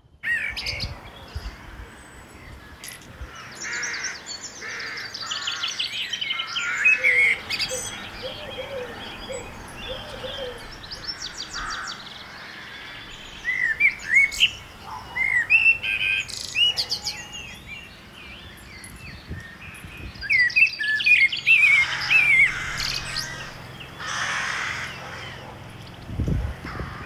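Several songbirds singing at once: overlapping chirps, trills and quick whistled phrases in busy bursts. A brief low thump comes near the end.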